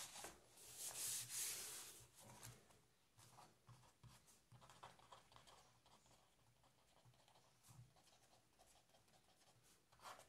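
A black marker pen writing on paper: faint, short scratching strokes as capital letters are written. A louder soft rustle comes in the first two seconds.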